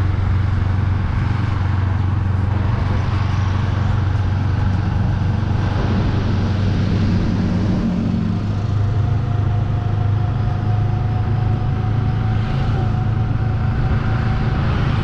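A motor vehicle engine running steadily: an even low hum over road noise, with no change in pitch.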